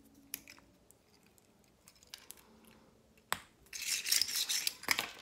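Small craft parts being handled on a tabletop: a few light clicks, then about a second of loud crinkling rustle nearly four seconds in.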